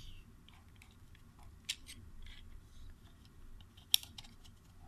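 Light clicks and handling noise of a smartphone being fitted into the plastic tray of a VR headset box, with two sharper clicks, one a little under two seconds in and one near the end.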